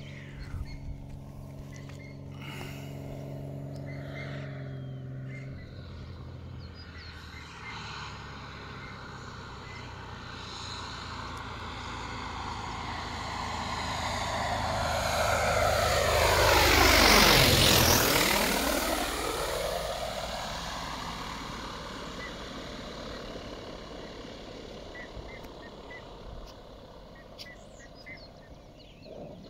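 Cessna 188 agricultural plane's piston engine and propeller coming in to land: it grows louder on approach, sweeps past low overhead just after the middle, then fades as the plane touches down and rolls away down the strip.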